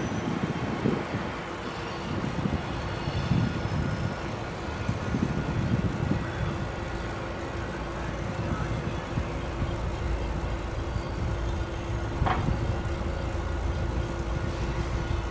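Freight train rolling by with a steady low rumble, a faint steady hum over it, and one brief sharp sound near the end.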